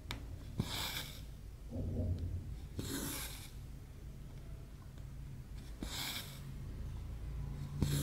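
Embroidery floss being drawn through Aida cross-stitch canvas: a short rasping swish as each stitch is pulled through, about every two to three seconds, each starting with a faint tick of the needle through the fabric.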